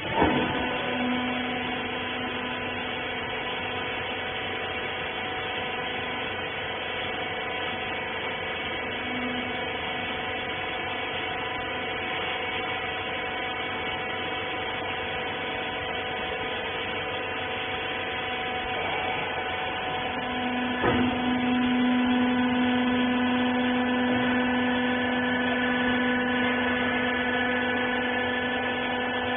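Hydraulic rag baler's electric motor and hydraulic pump running with a steady whining hum. A clunk sounds at the start and another about 21 seconds in, after which the pump runs louder.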